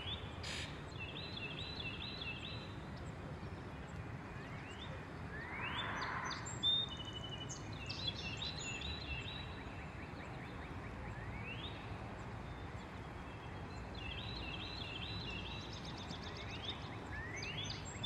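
Songbirds singing in the background, with repeated quick trills and short rising whistled notes, over a steady low outdoor rumble. A single sharp tap sounds about half a second in.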